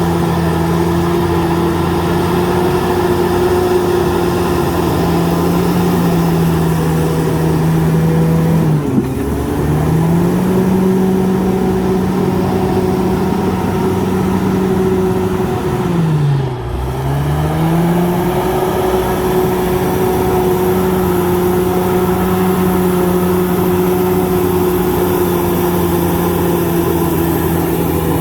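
Komatsu D68ESS bulldozer's diesel engine running steadily at high revs. Its pitch dips briefly twice, about a third of the way in and again just past halfway, each time climbing back up.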